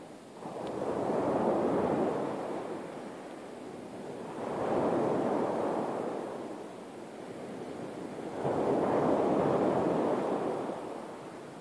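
Sea waves washing onto the shore: three surges of rushing water, each swelling and fading, about four seconds apart.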